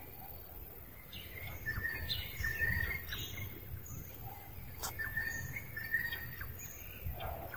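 Birds chirping: short, flat, high chirps, several of them in pairs, over a low steady outdoor rumble, with a single sharp click a little before the 5-second mark.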